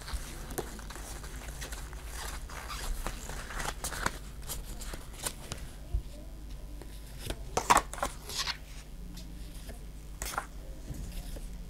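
Pokémon trading cards being flicked through and slid one past another by hand: a run of short, sharp snaps and swishes, with a quick cluster of louder snaps about eight seconds in.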